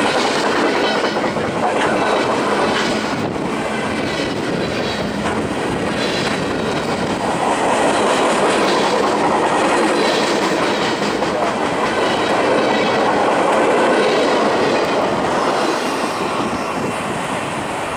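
Loaded freight train of flatcars passing close at speed: a steady, loud rumble of steel wheels on rail with a rhythmic clickety-clack over the rail joints, easing a little near the end as the last cars go by.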